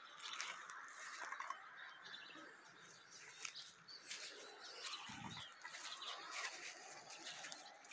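Faint outdoor ambience with small birds chirping in the distance, and one soft low thump about five seconds in.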